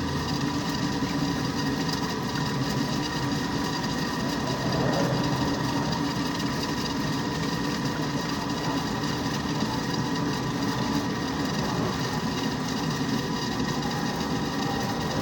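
Keeprite furnace inducer fan motor running steadily, a constant mechanical hum with a few steady tones.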